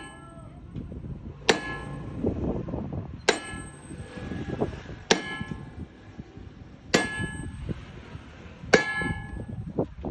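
Hammer striking metal five times at an even pace, about one blow every two seconds, each a sharp clang with a ringing tail.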